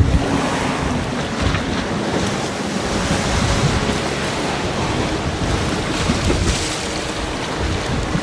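Strong wind blowing across the microphone over choppy, wind-driven waves.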